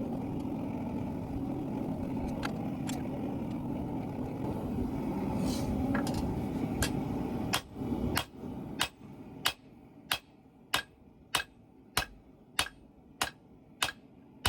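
A steady rushing noise that stops about eight seconds in, then regular hammer blows on hot steel, about one and a half a second, each ringing briefly: the drop-forged steel pipe wrench head being hand-forged on an anvil.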